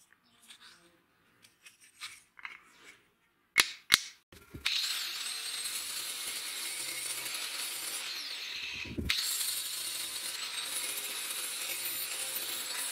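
Two sharp clicks, then an angle grinder starts and runs steadily with a high whine, working a clamped wooden handle blank. It cuts out briefly a little after the middle and picks up again.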